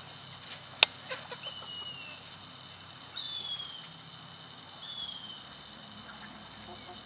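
Three short, falling whistled bird calls, with one sharp click about a second in, over a faint steady high drone.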